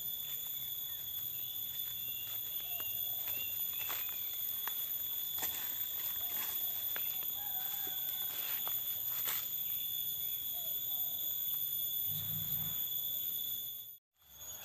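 Forest ambience: a steady high-pitched insect drone, with short bird chirps and scattered clicks of footsteps on leaf litter and twigs. The sound cuts out for a moment near the end.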